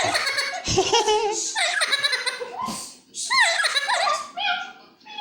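Black-capped lory mimicking human laughter: a run of high giggling notes, with arching glide-like calls near the middle and a short series of falling notes near the end.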